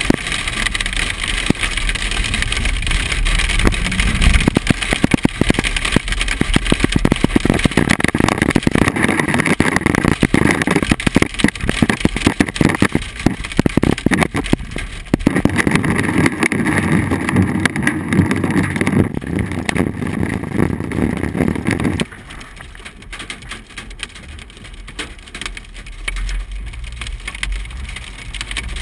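Hail hitting a car's roof and windshield, heard from inside the cabin: a dense, loud rattle of impacts over the rumble of the vehicle. About 22 seconds in, the rattle drops off suddenly to a much quieter rumble.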